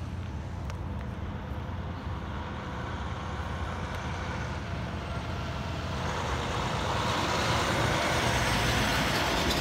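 Kenworth T880 dump truck's diesel engine running as the truck drives up and passes close by, with a steady low engine hum that grows louder over the last few seconds as tyre and engine noise swell.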